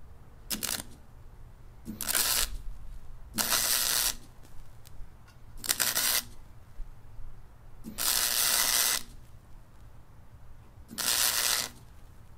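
An electric welder laying short welds, six bursts of hissing crackle about half a second to a second long, with pauses between.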